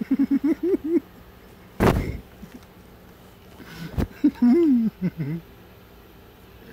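Short bursts of a person's voice, without clear words, in the first second and again near the middle. Between them comes a brief loud rush of noise about two seconds in, and a single sharp click about four seconds in.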